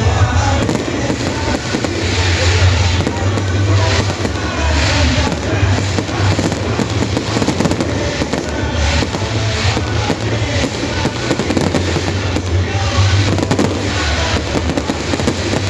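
Fireworks going off in rapid succession, with many bangs and crackles, over loud music.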